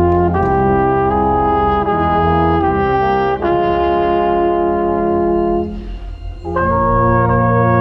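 Brass ensemble, trumpets and trombones, playing slow held chords. The chord changes about half a second in and again about three and a half seconds in, then the sound drops briefly before a new loud chord comes in near the end.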